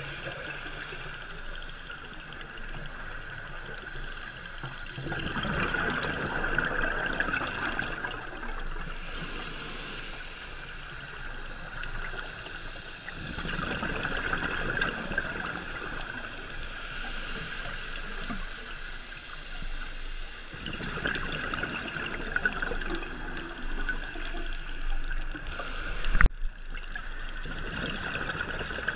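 Scuba diver breathing through a regulator, heard underwater through a GoPro Hero 3 housing: a rush of exhaled bubbles about every seven seconds, with a quieter steady hiss between. A single sharp knock a little before the end.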